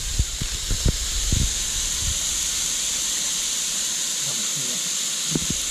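Dove and thrush breast meat sizzling steadily on a hot griddle over a portable butane stove. A few soft knocks and rustles in the first second and a half.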